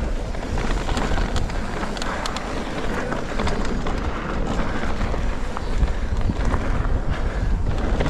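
Wind rushing over an action camera's microphone as a mountain bike rides fast down a dirt trail, with the rumble of the tyres and frequent sharp clicks and rattles from the bike over the bumps.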